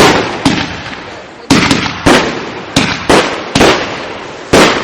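Aerial firework shells bursting in quick, irregular succession: about eight sharp bangs in under five seconds, each trailing off in echo.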